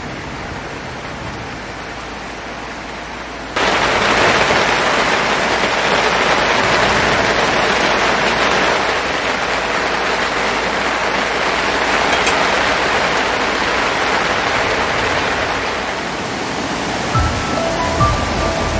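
Steady rushing water, suddenly louder about four seconds in. Background music comes in near the end.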